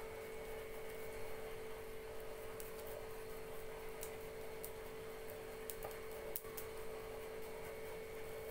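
A steady hum at one pitch, with faint light scrapes and ticks as cheese is grated by hand over an omelette in a nonstick frying pan.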